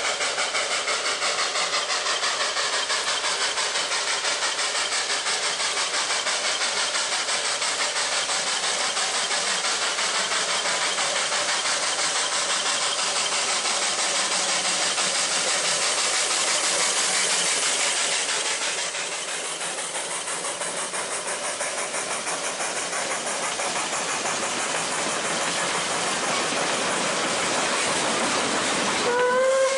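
Puffing Billy NA-class 2-6-2T narrow-gauge steam locomotive working hard past, its rapid exhaust beats growing louder as it approaches and falling back once it has passed, then its carriages rolling by. A brief steam whistle with a rising pitch sounds near the end.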